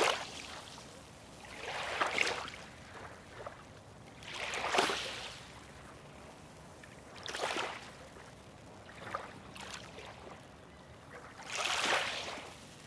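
Small waves lapping, each one a washing splash that swells and fades, about five in turn every two to three seconds.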